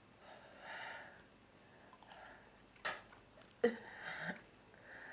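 A woman's put-on sneezing fit: breathy gasping in-breaths build up, then a short catch near three seconds and a loud, sharp sneeze just past halfway.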